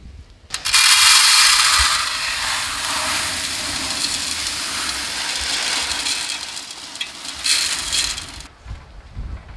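Dry skinned urad dal (black gram lentils) poured into a large metal pot: a dense, hissing rattle of grains hitting the metal and each other. It starts about half a second in, is loudest for the first second or so, and carries on more lightly. A second, heavier pour comes near the end before the sound stops.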